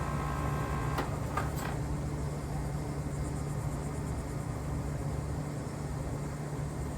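Outdoor heat pump unit running steadily: an even compressor and fan hum.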